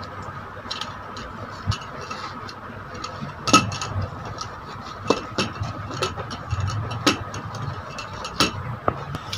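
Irregular plastic clicks, knocks and rustling as a 3120A tripod is pulled out of its cloth carry bag and handled on a table, the sharpest knock about three and a half seconds in. A faint steady hum runs underneath.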